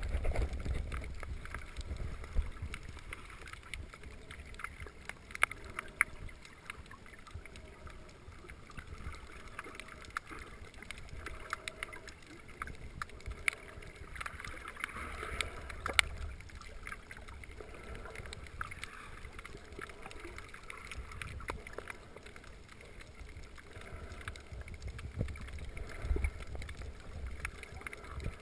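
Water sound heard underwater: a muffled, steady low rumble of moving water with scattered sharp clicks and crackles throughout.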